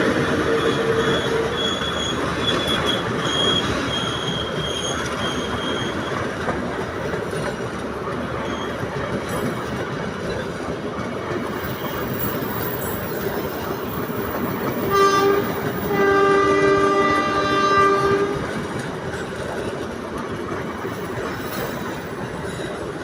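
A train rolls past with wheels clattering, and a thin high squeal runs through the first few seconds. About fifteen seconds in, the locomotive's horn sounds a short blast and then a longer blast of about two seconds.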